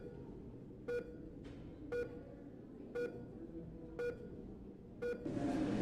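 Hospital patient monitor beeping steadily, five short identical tones about a second apart, the pulse beep of a sleeping patient's heart rate. Near the end a rising hiss of noise comes in.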